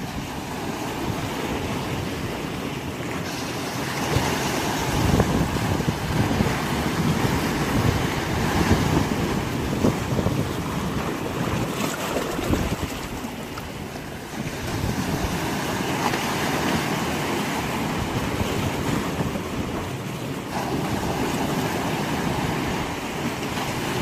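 Sea waves at high tide breaking against and washing around large rocks: a continuous rush of surf and foam that swells as each wave comes in.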